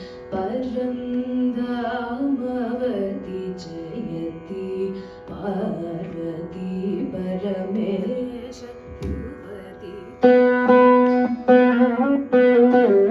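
Carnatic music on the Saraswati veena: a slow melodic line sliding between notes, with some singing, over a steady low drone. About ten seconds in, crisp, louder plucked veena notes begin.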